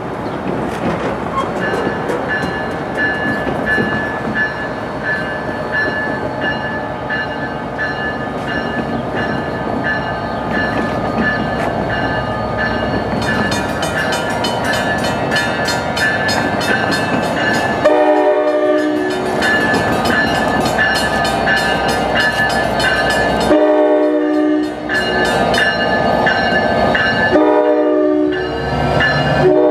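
NJ Transit PL42AC diesel locomotive approaching with rising engine and wheel rumble while a bell rings about twice a second. From a little past halfway it blows its air horn in three blasts, the first about five seconds long, the last running on at the end.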